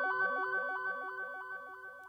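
Electronic intro music trailing off: a quick run of repeating synth-keyboard notes that fades away steadily.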